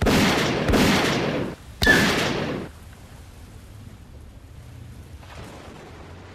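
Three handgun shots in quick succession, each a sharp report with a ringing tail. The first two come close together and the third follows about a second later.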